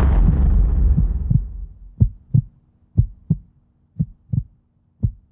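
The band's music fades out in a low decaying tail, then a heartbeat sound effect starts: pairs of low thumps, lub-dub, about once a second.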